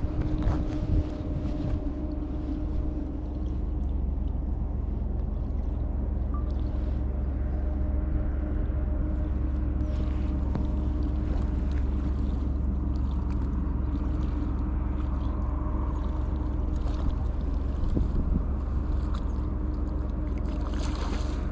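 A boat's motor running steadily, a constant low hum.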